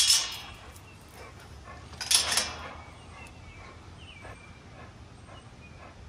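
Pit bull barking twice, loud, about two seconds apart.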